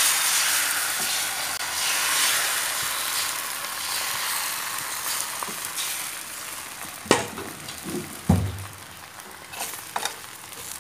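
Beaten egg sizzling in hot oil as it is poured into a nonstick pan to fry a thin omelette; the sizzle is loudest at first and slowly dies down. In the second half a metal spatula knocks and scrapes against the pan a few times.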